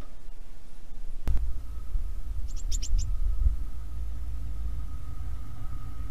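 A sharp click about a second in, then a low rumbling buffeting on the trail camera's microphone; just before the middle, a quick run of four or five short, high-pitched chirps from a tit.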